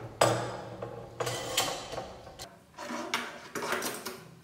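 Steel bar clamp being handled on a wooden board: a string of metallic clacks and knocks as it is set down and its sliding jaw is moved along the bar, the loudest just after the start.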